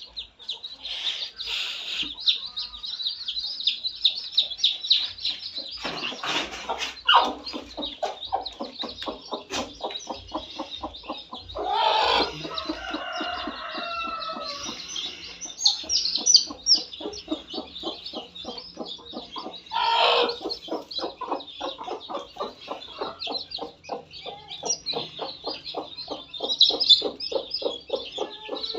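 A brood of young chicks peeping constantly while a hen clucks in a fast, steady run, about four clucks a second, with louder hen calls about 6, 12 and 20 seconds in.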